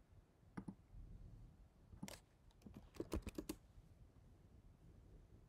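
Faint clicks of a computer keyboard and mouse: single clicks about half a second and two seconds in, then a quick run of clicks around three seconds in.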